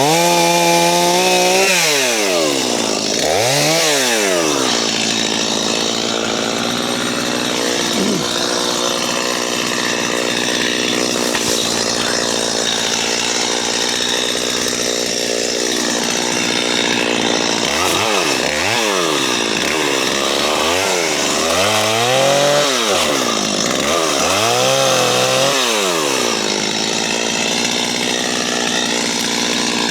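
JCB 55Z mini excavator's diesel engine and hydraulics running under load, the pitch sweeping up and down several times as the machine works.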